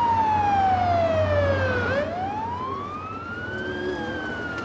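Ambulance siren wailing: a slow falling tone that bottoms out about two seconds in, rises for about two seconds, then starts to fall again near the end, over a steady low hum.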